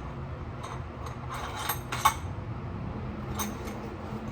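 Metal hand tools clinking as a socket wrench is fitted to bolts and tightened: a few separate sharp clinks, the loudest about two seconds in.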